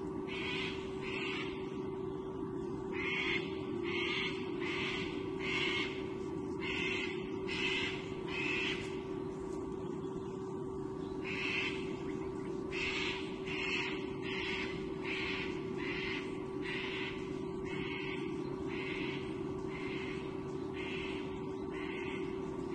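White-bellied sea eagle nestling giving repeated high food-begging calls while being fed, in short runs of about two calls a second with brief pauses. A steady hum sits underneath.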